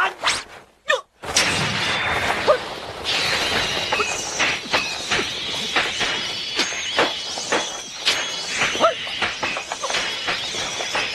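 Fight-scene scuffle: a dense run of sharp clashes and impacts, a few a second, over a continuous hissing noise.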